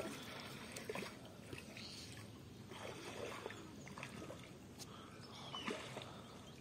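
Faint wet sloshing and slapping of live catfish squirming in a bucket of muddy water, with a few small clicks.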